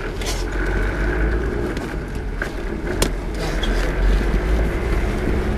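Steady low rumble of a car's engine and road noise heard from inside the car, with one sharp click about three seconds in.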